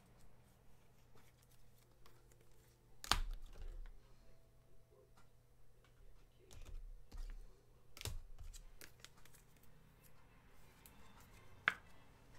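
Faint, scattered clicking of a computer keyboard, with three sharper clicks standing out, over a faint steady hum.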